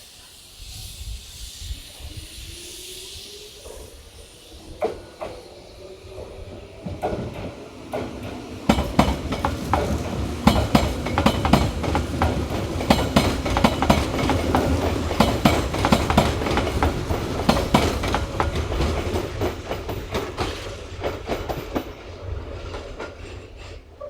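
Hanshin Main Line electric train running through the station: a motor whine rises in pitch over the first few seconds, then a long run of loud rapid wheel clicks over the rail joints with a heavy rumble, fading away near the end.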